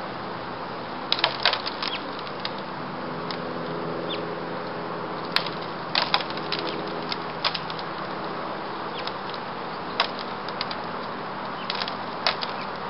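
Small birds feeding on fallen birdseed, heard as short sharp ticks and chirps at irregular moments, several in quick clusters, over a steady outdoor hiss.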